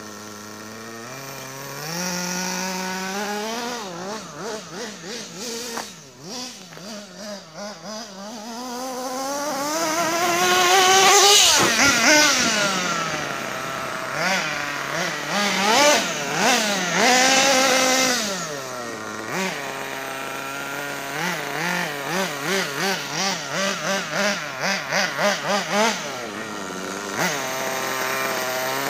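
Small nitro engine of a Kyosho Mad Armour radio-controlled monster truck revving up and down as the truck is driven. Its pitch climbs to its highest and loudest about eleven seconds in, then falls away into a quickly wavering note of repeated throttle blips near the end.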